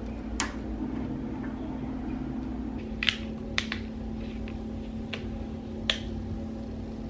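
A sharp click as slatted window blinds are tugged open. Then, from about three seconds in, a few more sharp clicks as the plastic cap of a soda bottle is twisted off and its seal ring snaps. A steady low hum runs underneath.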